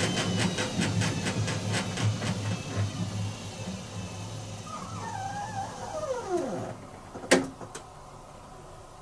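Whirlpool AWG023 H-axis top-loader washing machine coasting down at the end of its final spin. The drum's beat of about three a second slows and fades, and a wavering tone glides downward. The motor noise stops suddenly, then a single sharp click follows.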